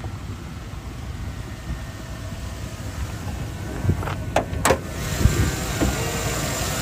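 Hood of a 2007 Chevy Avalanche being unlatched and raised, a short run of clicks and squeaks about four seconds in. A steady low running sound lies under it and grows a little louder once the hood is up, consistent with the truck's 5.3 L Vortec V8 idling.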